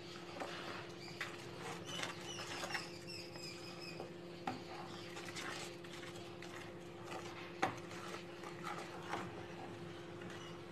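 A spatula stirring thick sweet amchur and jaggery chutney in a pan: faint scrapes and scattered soft clicks against the pan, over a steady low hum.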